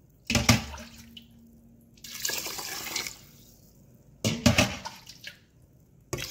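Water poured over raw rice in a rice cooker's inner pot, in three short splashing pours about two seconds apart, each starting with a sharp splash.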